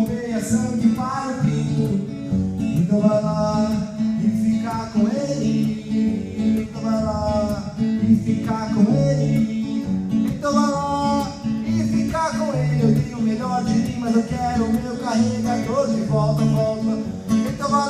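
A man singing to his own strummed acoustic guitar, the sung melody running over steady chords throughout.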